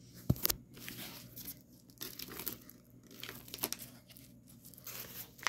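Yellow padded paper mailer crinkling and tearing as it is pulled open by hand, with irregular sharp crackles.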